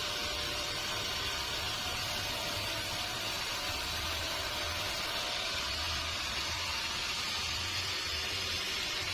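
Sawmill machinery running with a steady hiss and a low rumble that swells and fades.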